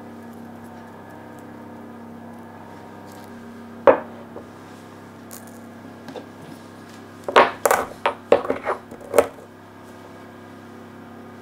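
Small stone mortar with black peppercorns knocking on a wooden board. There is one sharp knock about four seconds in, then a cluster of quick clicks and knocks over about two seconds, over a faint steady hum.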